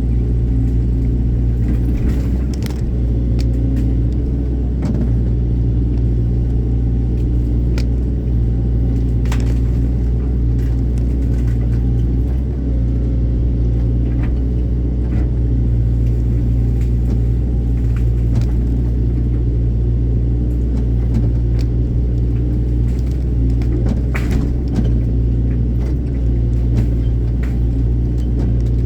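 Excavator's diesel engine running steadily under load, a constant low hum, with occasional short sharp knocks over it.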